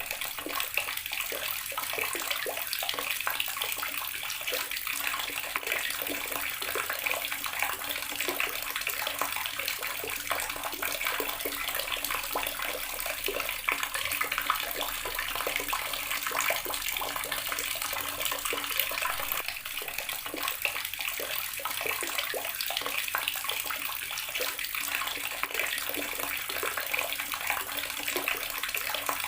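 Water running steadily from a tap and splashing down, a continuous splashing hiss.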